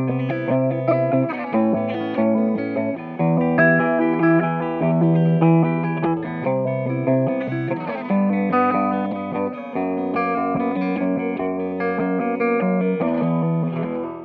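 A 2006 Gibson Firebird VII electric guitar played through a Subdecay Starlight Flanger V2 pedal into an Orange AD30 amp, with chords and notes changing every second or two under the flanger's sweeping modulation. The playing fades out at the very end.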